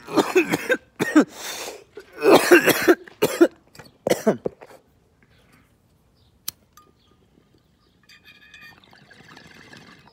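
A man coughing hard in several rough fits after a hit of cannabis smoke from a glass water bong, then falling quiet after about five seconds.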